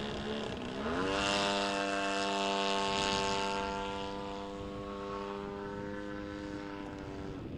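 Propeller and motor of an MXS aerobatic RC airplane in flight. The note climbs sharply about a second in as the throttle opens, then holds a high steady drone and cuts off near the end.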